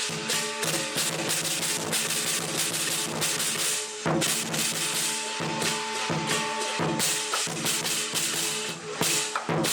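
Chinese lion dance drum and cymbals playing, the drum beaten rapidly under a dense wash of cymbal crashes.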